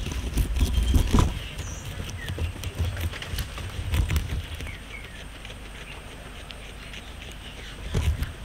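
Guinea pig chewing and tearing fresh grass close to the microphone: irregular crisp munching and rustling with soft low thumps, easing off in the second half and picking up again near the end.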